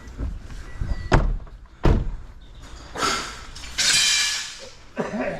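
Two sharp knocks a little under a second apart, then two longer scraping rushes, as heavy scrap is handled and shifted inside a car.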